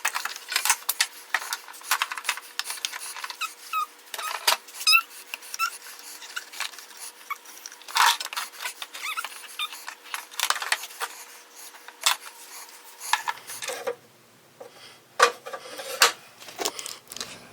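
Irregular clicks, taps and clinks of small hard objects being handled, with a few short squeaks about four seconds in.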